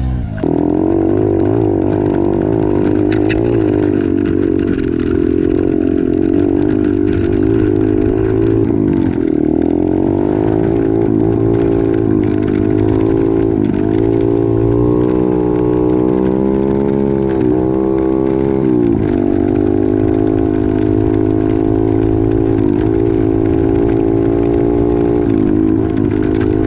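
Can-Am Maverick X3 Turbo's turbocharged three-cylinder engine running while driven on a trail, its pitch rising and falling as the throttle changes, dipping briefly twice.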